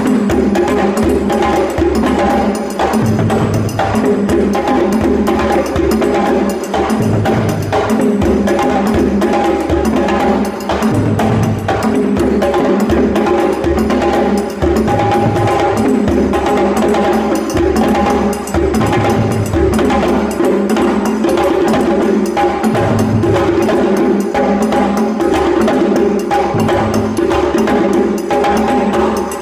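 West African drum ensemble playing a fast, dense, unbroken rhythm: a hand-played djembe over dunun bass drums struck with sticks. Deep bass notes come back about every two seconds, with a bright ringing, wood-block-like layer on top.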